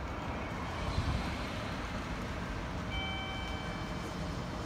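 EF66 electric locomotive hauling a container freight train as it approaches, with a steady low rumble. About three seconds in, faint steady high tones ring for about a second.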